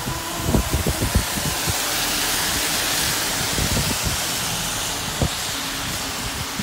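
Car tyres hissing on a rain-wet road while driving, the hiss swelling in the middle as another car passes close alongside, with scattered low thumps.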